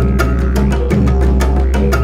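Background music: a quick, steady beat of light percussion over deep bass notes that change about once a second.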